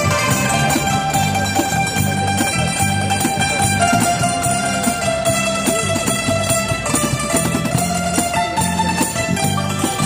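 Live music from an ensemble of Thai khim (hammered dulcimers) struck with sticks. It has a repeating bass pattern under long held melody notes.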